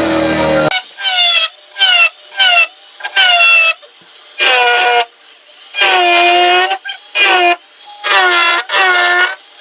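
A small high-speed rotary tool with a cutting wheel slotting a seized bolt head in about a dozen short passes. Each time the wheel bites the metal there is a loud whining screech whose pitch sags and then recovers. Between cuts the tool drops back to a much fainter whine.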